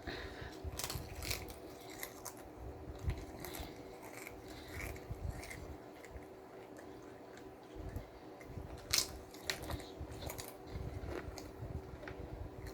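Close-miked eating of a BLT sandwich: scattered crisp crunches and wet mouth clicks from biting and chewing, the sharpest about three seconds and nine seconds in, over a steady faint hum.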